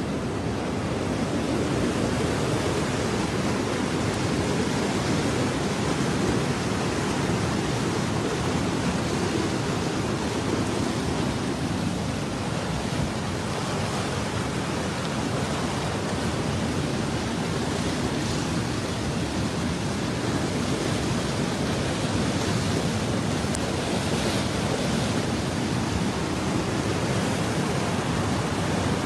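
Muddy floodwater of a wadi flash flood rushing past in full spate, a steady, unbroken rushing noise.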